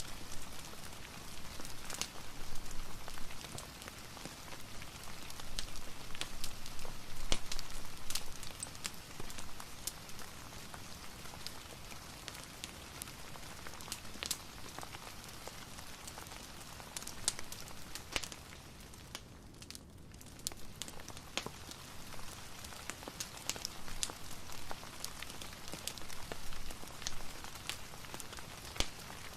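Steady rain with scattered sharp pops and crackles of a wood fire mixed in. The mix thins out briefly a little past the middle.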